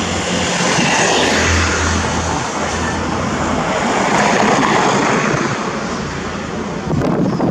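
Road traffic passing close by: a motorcycle's engine hum that fades out about three and a half seconds in, then a car going past, over a steady rush of engine and tyre noise.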